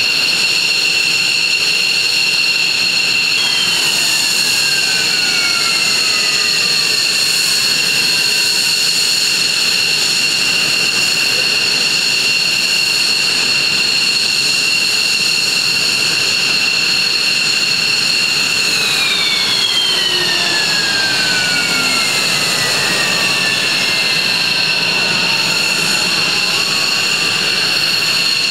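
F-15 jet engines running with a loud, steady high-pitched whine. Twice, a whine slides slowly down in pitch over several seconds, a few seconds in and again past the middle.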